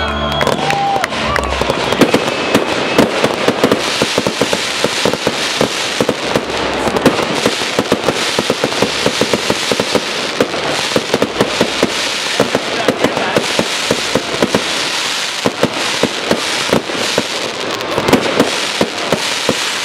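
Fireworks going off in a continuous barrage: a dense, unbroken string of bangs and crackling from aerial bursts. A short whistle rises about a second in.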